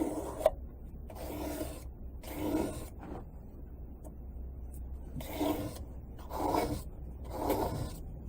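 Knife blade stroked over the fine side of an oiled sharpening stone, a rasping scrape with each stroke about a second apart and a short pause midway, raising a burr on the edge.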